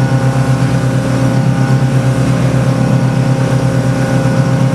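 Boat engine running steadily, a low hum with a regular throb.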